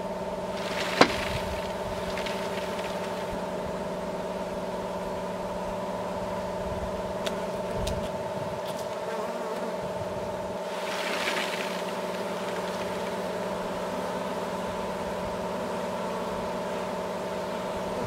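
Brood frames of honeybees shaken off onto a ramp in front of a nuc hive: a sharp knock with a short rustle about a second in, and another rustling burst about eleven seconds in. A steady hum runs underneath throughout.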